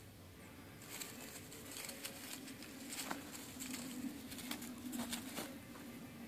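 Two Wyandotte bantam roosters fighting: bouts of rapid wing flapping and scuffling on straw, in clusters of sharp beats starting about a second in and dying away near the end.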